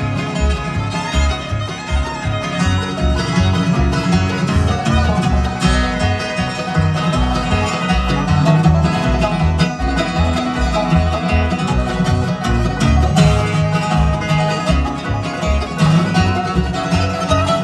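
Live bluegrass band playing an instrumental break: banjo, guitar and fiddle over an upright bass on a steady two-beat pulse.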